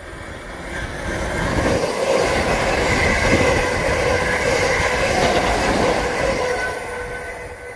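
A train passing through the station, swelling over the first couple of seconds and fading near the end, a rolling rumble with a steady high whine over it.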